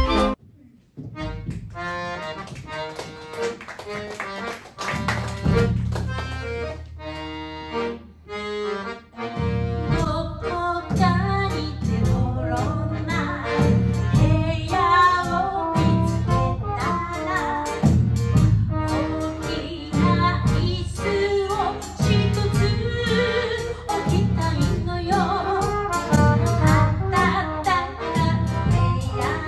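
Live chindon band music: an accordion carries the melody while a woman sings. From about ten seconds in, a steady bass-drum beat joins.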